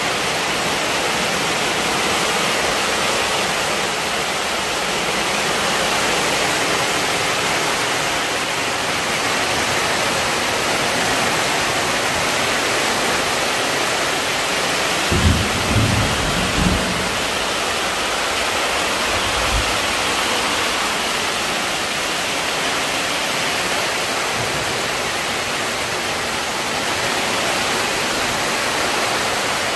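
Heavy rain falling on a tarp roof covering, a loud steady hiss, with a few low thumps around the middle.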